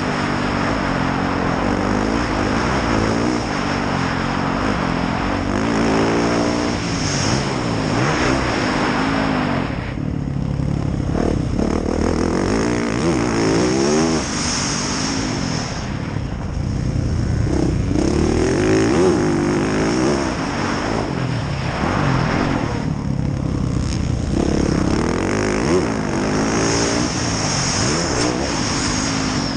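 2019 Yamaha YZ450F's single-cylinder four-stroke engine being ridden on a motocross track, its pitch rising and falling over and over as the throttle is opened and closed. The throttle is shut off briefly three times, a third of the way in, around halfway, and past three quarters.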